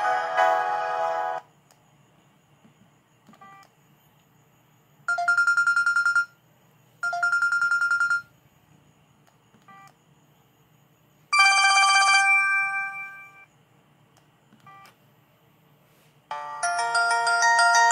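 Samsung ringtones played through a ZTE Z222 phone's small speaker. A melody ends about a second in, followed by short trilling ring bursts: two alike, then a longer one that fades out, with faint short beeps between them. A new melody starts near the end.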